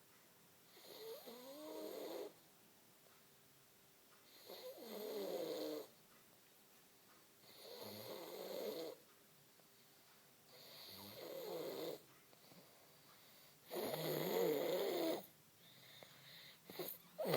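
A sleeping person snoring: long snores at a steady pace, roughly every three seconds, each lasting a second or so and wavering in pitch. The later snores are louder.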